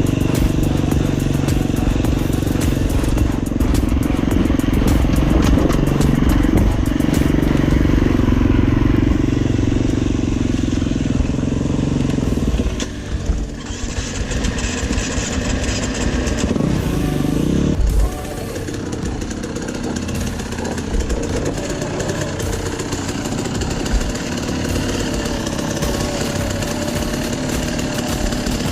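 Enduro motorcycle engine running under load, steady and loud, then dropping in level about halfway through. Shortly after there is a brief rising rev, and then the engine runs on more quietly.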